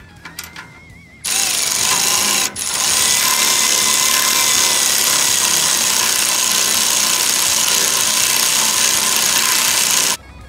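Power tool running steadily for about nine seconds, with a brief break a couple of seconds in, then cutting off suddenly.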